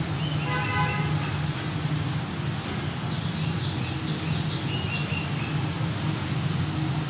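Steady low rumble of road traffic. About a second in, a short steady pitched tone sounds, and from about three seconds in a small bird chirps several times in quick succession.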